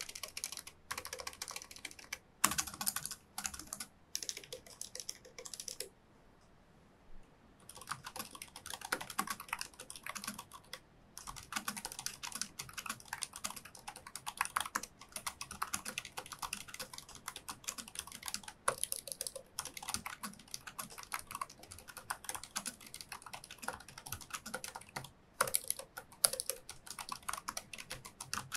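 Typing on a Razer DeathStalker V2 Pro keyboard with low-profile linear optical switches. Short groups of key presses come first, then a pause of about two seconds, then fast, continuous typing.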